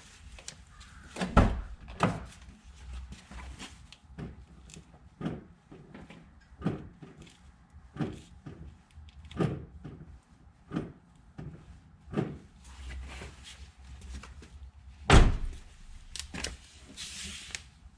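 Brake pedal of a BMW X5 being pumped repeatedly to pressurise newly replaced brake lines and check the joints for leaks: a regular knocking about once every second and a half, with a heavier thud about a second in and the loudest one about fifteen seconds in.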